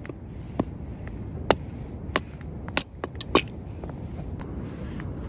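A hatchet splitting a stick of firewood into kindling on a wooden chopping block: about seven sharp, irregular chops, wood cracking apart, over a steady low rumble.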